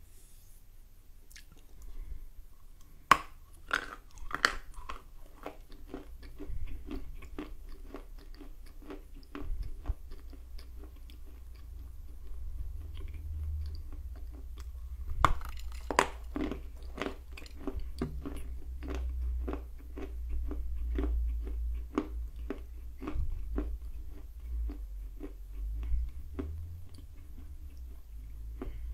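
A person biting off and chewing a chunk of dry edible Orsk clay close to the microphone: a few sharp crunching bites about three to four seconds in and again around fifteen seconds, with steady crunchy chewing, about two chews a second, between and after them.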